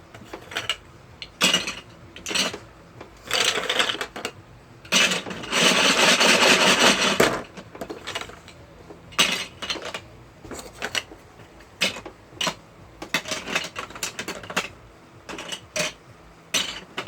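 Hard plastic Duplo bricks knocking and clattering as they are handled, in scattered sharp clicks with a couple of seconds of continuous rattling around the middle.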